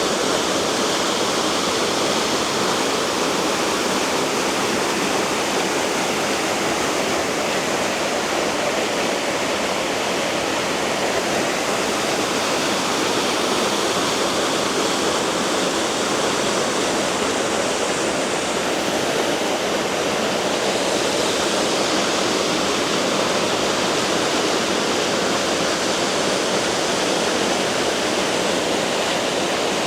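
A small waterfall on a beck rushing steadily, a continuous roar of falling and splashing water.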